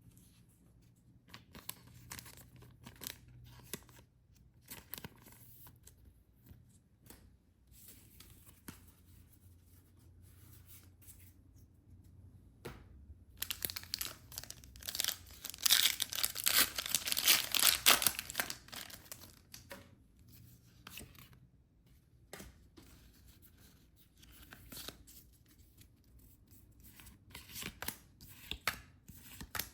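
Packaging being torn open and crinkled by hand, with a loud stretch of tearing and crinkling about halfway through, between lighter rustles and small clicks.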